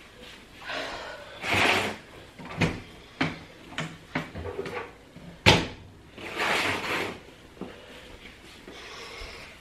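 Household handling noises: a few rustles and scattered knocks and clicks, with one sharp knock about five and a half seconds in.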